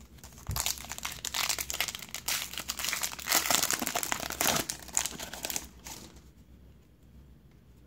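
Trading-card pack wrapper crinkling and crackling as it is opened and worked off the cards, for about five seconds, then dying away.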